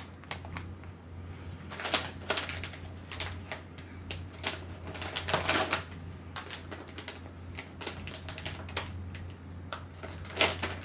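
Plastic snack packet crinkling and tearing as it is opened by hand, a run of irregular crackles.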